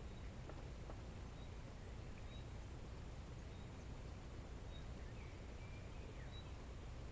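Faint bird calls: a short high note repeated about once a second, with a few brief sliding chirps about five seconds in, over a steady low background rumble.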